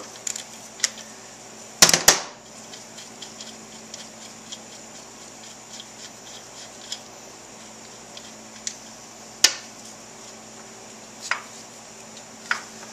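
Hand tools clanking on metal as a wrench works a rust-seized bolt in a motorcycle's rear suspension linkage: a sharp double knock about two seconds in, another near the middle, a few more near the end, with light ticks between.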